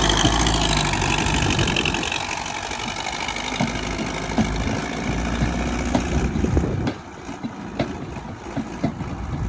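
Heavy diesel engine running, loud at first, then fading after about two seconds and dropping further about seven seconds in, with scattered knocks and clicks.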